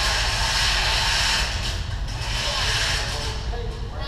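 Steady hiss and low rumble of background noise in an indoor shooting range between rifle shots, with no shot fired.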